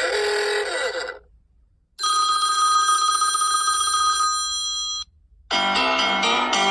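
iPhone ringtones played one after another with short silent gaps. First comes a short sound of about a second. Then a warbling electronic ring of steady held tones lasts about three seconds and cuts off sharply, and a melodic ringtone of quick notes starts near the end.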